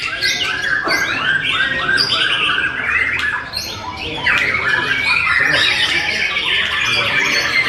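White-rumped shamas (murai batu) singing in contest, several caged birds at once in a dense, unbroken tangle of whistles and rapid chattering phrases.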